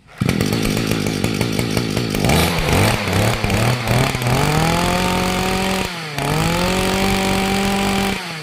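Shindaiwa 26 cc two-stroke brush cutter engine starting up and running: it catches suddenly at the start and runs unevenly at a low speed. Over a few seconds it climbs to a steady, higher speed, dips briefly about six seconds in and picks back up, then drops again near the end.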